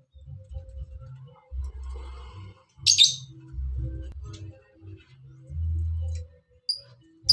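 A young songbird chirping: a loud burst of high calls about three seconds in, then short, sharp chirps repeating near the end, over a low, pulsing bass background.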